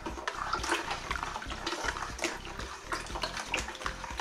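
A plastic paddle stirring crushed blackberries and rhubarb with sugar and water in a plastic fermentation bucket. The liquid sloshes and splashes, with many small clicks of fruit and paddle, as the sugar is stirred to dissolve it.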